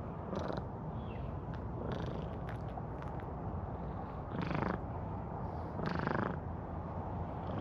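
A calico cat purring steadily as it is stroked, with a few louder swells.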